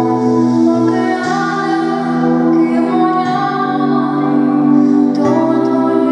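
Music: a girl singing into a microphone over instrumental accompaniment of held chords, the low notes changing every second or two.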